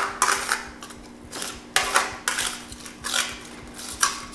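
A metal spoon scraping spaetzle batter through the holes of a stainless steel colander in several uneven strokes, pushing the dough through to form the dumplings. A faint steady hum runs underneath.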